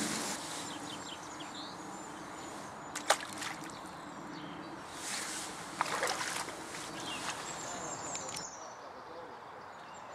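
Light water sloshing and rustling as a roach is slipped back into the lake by hand, with two sharp clicks about three and six seconds in. Faint high bird chirps come in near the end.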